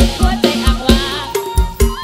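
Live Thai Isan-style band music: electronic keyboard, electric guitar and drum kit playing a fast, steady beat, with the kick drum hitting about four times a second, and a woman singing with a wavering voice.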